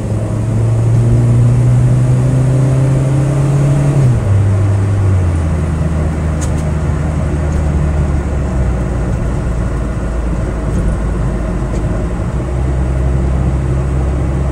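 2003 Mitsubishi Lancer ES 2.0-litre SOHC four-cylinder engine heard from inside the car while accelerating. Its pitch rises for a few seconds, drops sharply at about four seconds in as it shifts up a gear, then runs fairly steadily. The engine has a logged cylinder 2 misfire and hesitates under acceleration.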